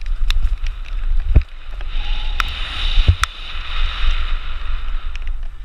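Downhill mountain bike descending a bumpy dirt singletrack, heard through the rider's camera microphone: wind buffeting the mic, sharp knocks and rattles as the bike hits bumps, and a hiss from about two seconds in to past four seconds.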